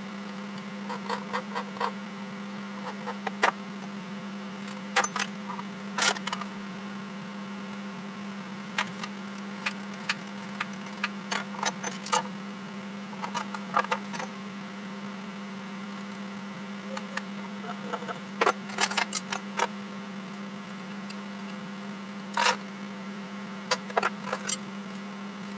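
Small metal hand tools (dividers, steel rule, scriber and pencil) clicking and clinking as they are picked up, set down and worked on a plywood board lying on a steel milling-machine table. The sound plays at four times speed, with irregular sharp taps over a steady hum.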